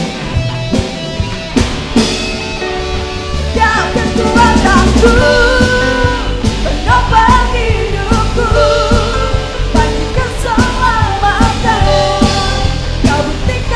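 Praise-and-worship rock band playing with electric guitar, bass guitar, keyboard and drum kit; the first few seconds are instrumental, then a lead vocal comes in about four seconds in and the band gets louder.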